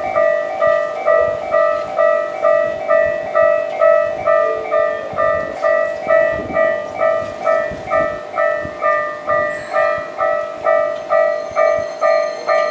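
Electronic warning bell of a Japanese level crossing on the Keikyu Main Line, ringing steadily at about two strikes a second while the gates are down. Near the end a high steady whine comes in as the train approaches.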